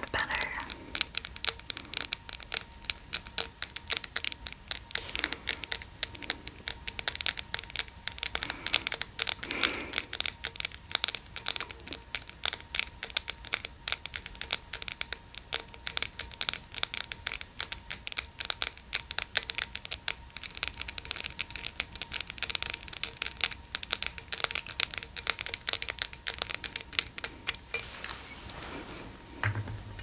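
Dense, rapid crackling and clicking of a lollipop's plastic wrapper being handled by fingers, thinning out near the end.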